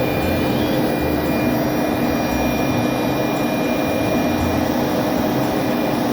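CNC router spindle running and cutting stock, with its dust vacuum drawing, a loud steady machine noise with a constant hum in it; it cuts off abruptly near the end.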